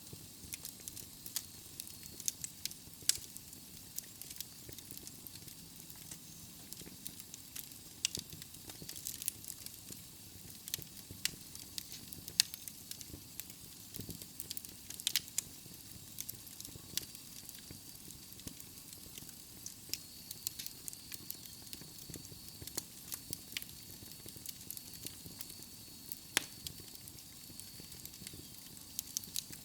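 Wood logs burning in a fireplace: a steady soft hiss of flames with frequent sharp, irregular crackles and pops.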